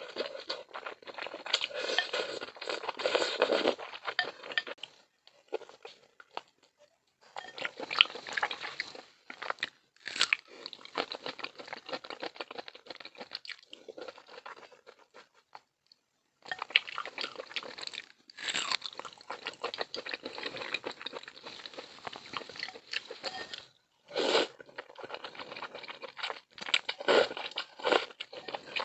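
Close-miked eating of malatang, a spicy hot-pot soup with braised pork intestine: chewing and crunching in runs, with short pauses about five, sixteen and twenty-four seconds in.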